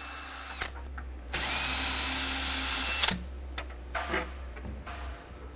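Power drill backing out the fasteners that hold a bed's footboard: a short run that stops about half a second in, then a second, longer run of about two seconds that starts with a rising whine. A few knocks follow.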